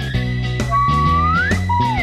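Upbeat background music with plucked notes over a steady bass, and a high whistle-like tone that rises in pitch in the second half.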